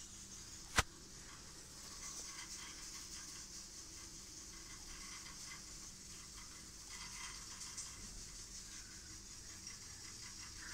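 Faint room hiss with one sharp click about a second in.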